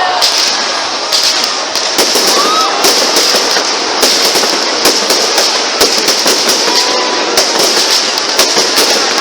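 Aerial fireworks going off in quick succession: a dense, continuous crackling with many sharp bangs and pops.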